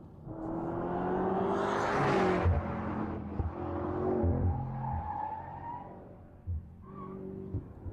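BMW M5 F90's twin-turbo V8 accelerating hard: the engine note climbs for about two seconds with a rush of noise, then steps in pitch several times with low thumps, and eases off near the end.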